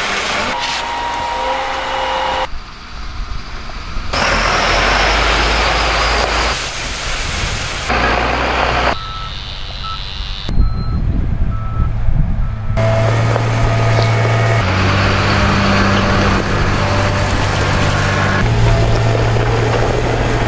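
Diesel engines of heavy construction machinery, concrete mixer trucks and a road grader, running in a string of short cuts. A reversing alarm beeps a few times about halfway through.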